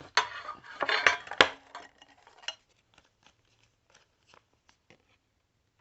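Plastic card sleeve being handled: a burst of rustling and crinkling with sharp clicks in the first couple of seconds, the loudest about a second and a half in, then a few faint ticks.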